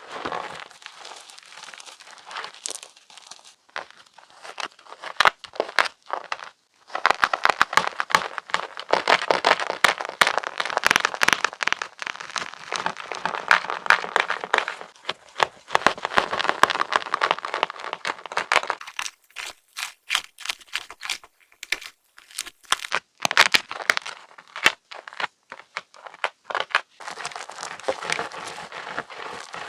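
Crispy fresh chalk blocks being crushed and crumbled into chunks, giving a dense crackling crunch. A long continuous stretch runs in the middle, then sharper separate snaps, then more crunching near the end.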